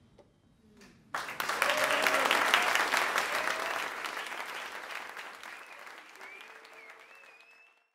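Audience applause breaking out about a second in after near quiet, with a few voices calling out. It peaks, slowly fades, and is cut off just before the end.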